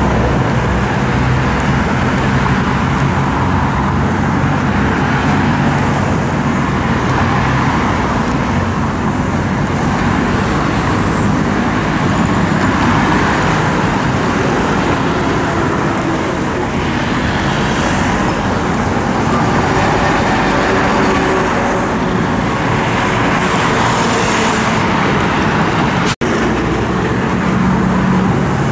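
Heavy road traffic on a multi-lane highway: cars, pickups, vans, trucks and motorcycles driving past, a steady mix of engine hum and tyre noise that swells each time a vehicle goes by. The sound cuts out for an instant near the end.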